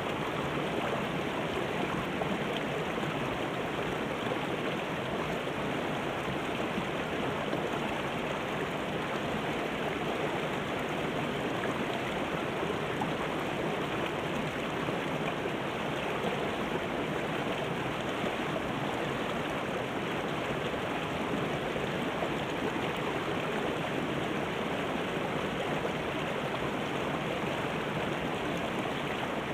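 Shallow rocky river running over and between boulders in small rapids: a steady, even rush of flowing water.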